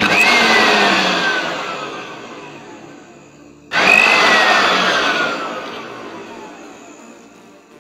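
Philips blender motor running twice in short bursts, in a blender just repaired after it would not turn at all. Each time it starts suddenly with a high whine that then slowly drops in pitch and fades as the motor winds down. The second start comes nearly four seconds in.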